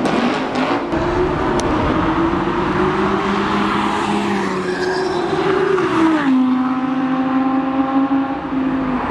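Audi R8 V10 Plus's 5.2-litre V10 engine running. Its note rises slowly for about five seconds, drops about six seconds in, then holds at a steady lower pitch.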